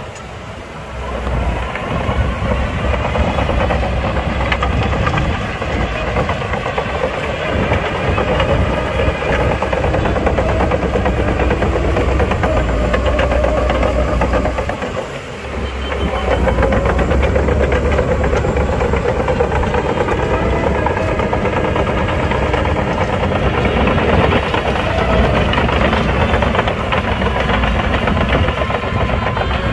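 Heavy diesel earthmoving machinery working, its engine running hard with a steady clatter, easing off briefly about halfway through and then picking up again.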